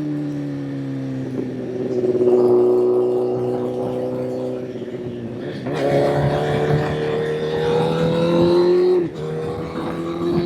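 Honda CBR1000 inline-four engine heard onboard while riding. The pitch sinks as the throttle rolls off and jumps up twice, about a second and a half in and again near six seconds, as it is shifted down. It then climbs under acceleration and drops sharply just after nine seconds on an upshift.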